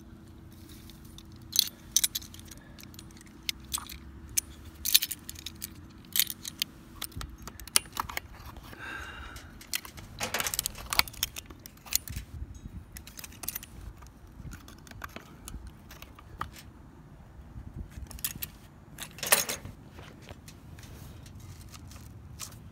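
Irregular sharp metallic clicks and jangles of a Topsaw pocket multitool being handled and fitted onto the bar nuts of a Stihl chainsaw to loosen them.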